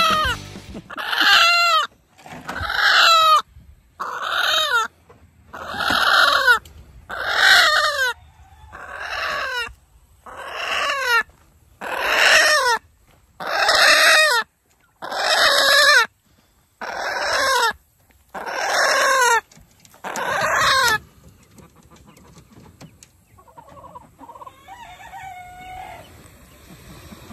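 Chicken squawking: over a dozen loud, harsh cries about one a second, each falling in pitch, typical of a bird being chased or caught. The squawking stops about 21 seconds in, leaving a few faint clucks.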